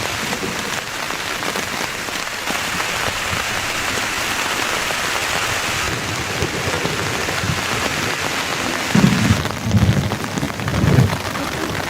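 Heavy rain falling steadily. Near the end, thunder rumbles low in three swells that are louder than the rain.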